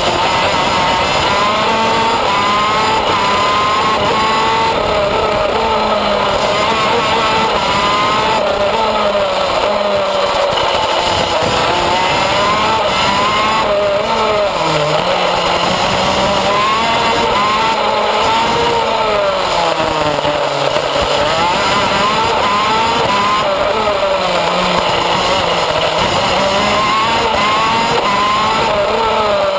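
Loud onboard sound of a shifter kart's two-stroke racing engine at speed, its pitch climbing and falling over and over as it accelerates out of corners and comes off the throttle into the next.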